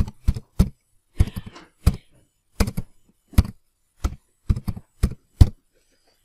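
Computer keyboard keys being typed, a dozen or so loud, sharp keystrokes in short irregular runs that stop about five and a half seconds in.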